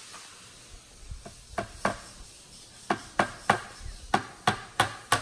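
Hand hammer knocking on a board: a few sharp knocks about a second in, then a steady run of knocks about three a second from about three seconds in.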